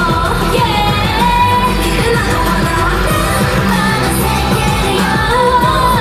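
K-pop dance-pop song playing loud over a steady beat, with a sung vocal line.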